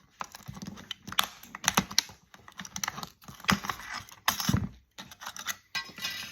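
Hand tools clicking and tapping on a circuit board as parts are pried and pulled off. Irregular sharp clicks, a few louder knocks about a second in and past the middle.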